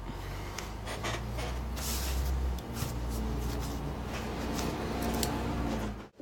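Handling noise from work at a bench: light clicks and rustles of small objects being moved, over a low rumble. It cuts off abruptly just before the end.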